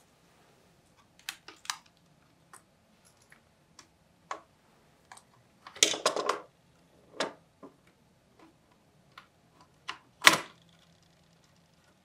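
Scattered clicks and knocks of hands working on an Asus Q405UA laptop, its keyboard deck being lifted off the base and a screwdriver handled. The loudest are a short cluster of rattling clicks about six seconds in and a sharp knock just after ten seconds.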